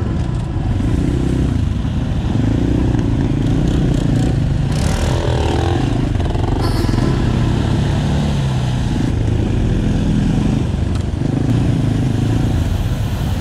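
GR2 Optimum enduro motorcycle's engine running while riding, its pitch rising and falling with the throttle. Two short bursts of hiss come about five and seven seconds in.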